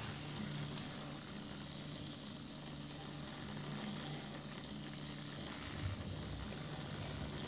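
Steady low hiss and faint hum of room tone, with a small click about a second in.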